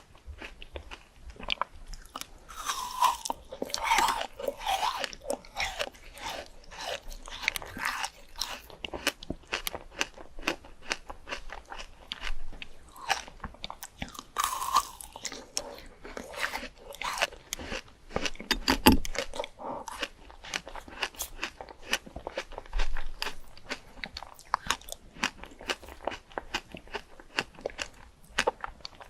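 A person biting and chewing crunchy fruit, with steady crisp crunches and a few louder bites along the way.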